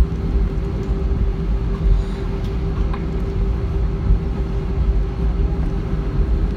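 Steady cabin drone inside an Airbus A320 airliner: a low rumble with a constant hum running through it.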